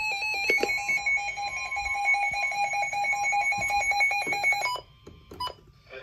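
Weather alert radio sounding its electronic alarm: a loud, rapidly pulsing two-pitch beep that cuts off abruptly just under five seconds in, followed by a couple of faint clicks.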